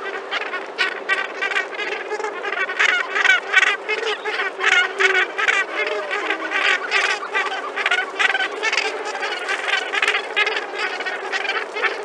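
A large Cape gannet colony calling: many birds giving harsh, overlapping calls in a dense, continuous chorus, several calls a second.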